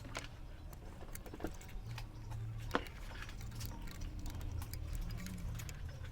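Scattered small clicks and taps of tools and capacitors being handled on a TV power supply circuit board during capacitor replacement, with one sharper click a little under halfway through, over a steady low hum.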